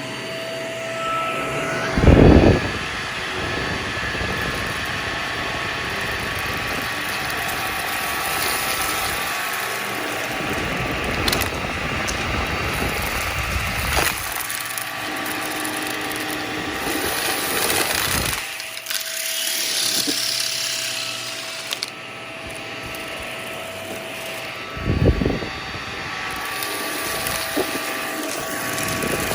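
Vacuum cleaner running steadily, its motor giving a whine over the rush of air, with two loud thumps, about two seconds in and near the end.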